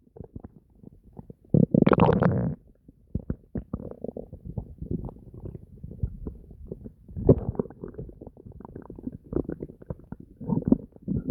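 Human stomach gurgling and rumbling: an irregular run of bubbly crackles, with louder gurgles about two seconds in, a little past the middle and near the end.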